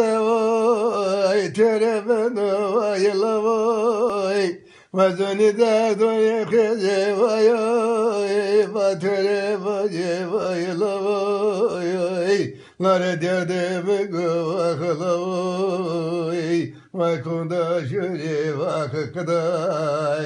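An elderly man singing unaccompanied, holding long wavering notes in drawn-out phrases, with brief breaks for breath about five, twelve and seventeen seconds in.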